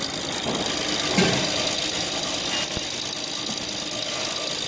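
Snack pellet production line machinery running steadily, a constant mechanical drone with a few steady tones, and one short knock about a second in.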